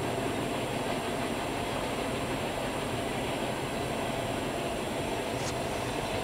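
Loaded coal hopper cars of a Norfolk Southern freight train rolling past, a steady rumble of wheels on the rails.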